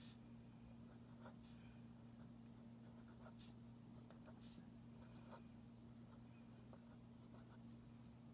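Faint scratching of a felt-tip marker writing letters on paper, in short irregular strokes, over a steady low hum.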